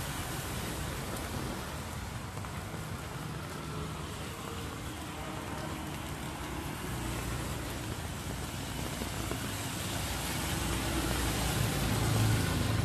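Street traffic on a rain-wet road: a steady hiss of tyres on wet asphalt and rain. Near the end, scooter engines hum louder as motorbikes come up close.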